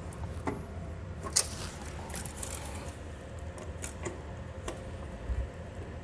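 A few light clicks and scrapes as a steel tape measure is handled and stretched across a metal rail, with one sharper click about a second and a half in, over a low steady hum.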